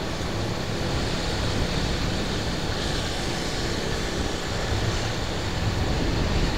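Steady road noise from riding along a city street: a vehicle engine running with the rush of tyres and passing traffic, unbroken and even throughout.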